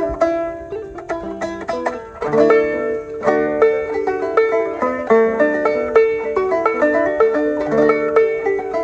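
Open-back banjo with freshly tied-on red Aquila hard-tension nylon strings, played as a tune of quick plucked notes.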